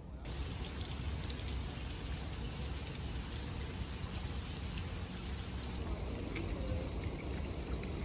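Light rain falling: a steady hiss with faint scattered drop ticks over a low rumble.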